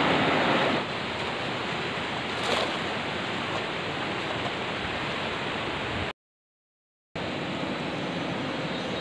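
Steady rushing of river water flowing over stones. The level steps down about a second in, and the sound cuts out completely for about a second a little after six seconds.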